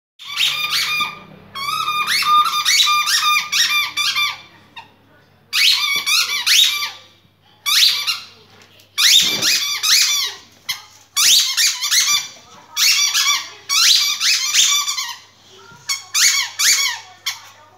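Puppy chewing a squeaky toy ball, squeaking it rapidly in runs of one to two seconds with short pauses between; each squeak is a high pitched whistle.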